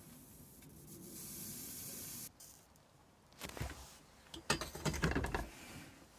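Soldering iron tip being cleaned: a steady hiss for about a second that cuts off sharply, then two bouts of scraping and rubbing, the louder one near the end.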